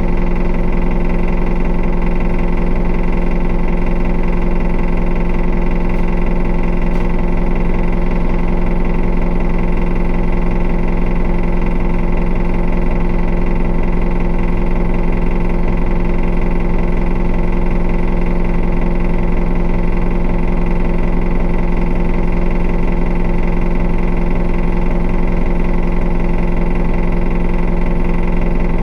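Diesel engine of an Isuzu Erga city bus (QDG-LV290N1, four-cylinder) heard from inside the cabin, running steadily at an unchanging pitch without revving. The engine carries the odd noise and heavy vibration that this particular bus is known for.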